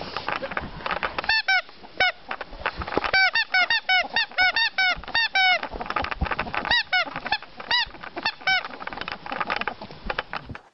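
Ferret dooking: rapid clusters of short, clucking chirps, the excited play call of a ferret, starting about a second in and stopping near the end, over scuffling and clicks of movement.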